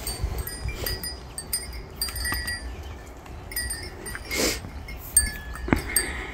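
Small bells on grazing sheep's collars tinkling irregularly as the animals move and crop grass, over a low wind rumble on the microphone. A short rasping sound about four seconds in and a few sharper knocks near the end.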